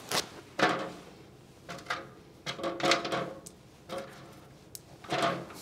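Objects being handled and set down at a lectern: a run of irregular short clatters and rustles, with a sharp click near the end.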